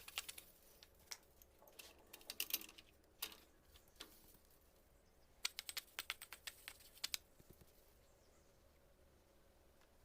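Runs of quick, light clicks and taps in short clusters, like small hard parts being handled, with quiet between; the clicks stop about seven seconds in.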